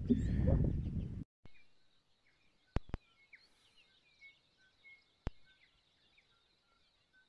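Wind buffeting the microphone, cutting off suddenly about a second in. After that it is quiet, with many faint bird chirps and three sharp clicks.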